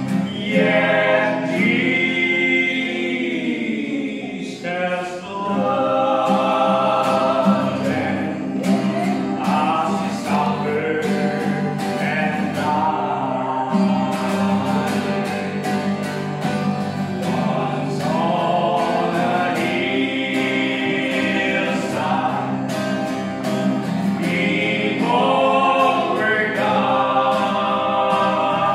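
Male vocal quartet singing a gospel hymn in close harmony, accompanied by a strummed acoustic guitar.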